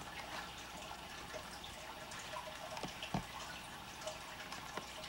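Quiet room tone with a few light, short taps and clicks, the loudest a little past three seconds in.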